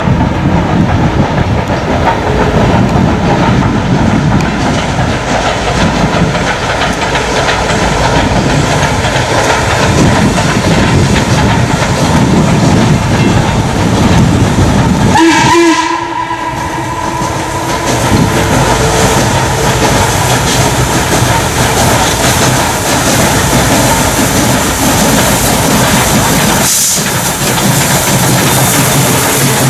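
Steam locomotive 1309, a 2-6-6-2 articulated Mallet, working a passenger train with a loud, heavy exhaust. The sound breaks off abruptly about halfway and again near the end.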